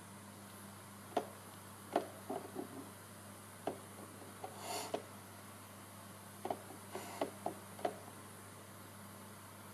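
A cat batting with its paw at a small box-shaped toy coin bank on a wooden table: a dozen or so light knocks and taps scattered over several seconds, with a short scuffing scrape about halfway through as the box shifts.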